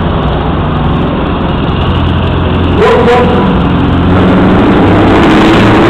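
Diesel engine of a truck tractor unit running loudly as it drives along the circuit, with a short sharp blast about three seconds in and the engine louder from about four seconds on.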